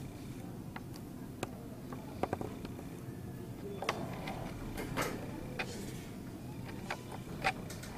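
Quiet classroom room tone with scattered light clicks and taps, about a dozen short ones spread through the stretch.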